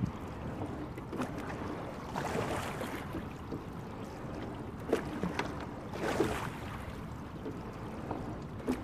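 Sculling boat being rowed slowly: a swell of rushing water with each stroke, twice about four seconds apart, and short knocks from the oars turning in their gates.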